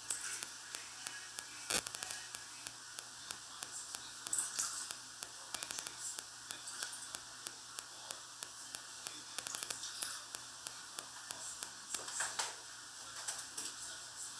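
Quiet kitchen handling sounds: a utensil and a stainless saucepan giving many small sharp clicks and taps, some in quick runs, with a few brief scrapes and one louder knock just under two seconds in.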